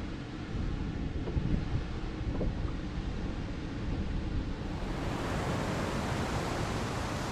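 Wind rumbling on the microphone with water lapping against a small boat's hull and a few faint knocks, then, after a cut about five seconds in, the steady rush of a fast whitewater creek.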